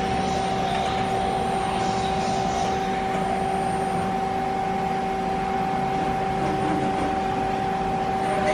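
Nomura NN32YB2 CNC Swiss-type lathe running under power: a steady machine hum with two constant whining tones above it, one higher and one lower.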